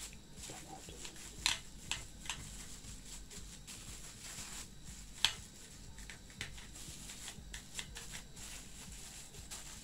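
Thin plastic bag and cling film crinkling and crackling under hands pressing minced beef into a patty. Sharp louder crackles come about one and a half, two and five seconds in.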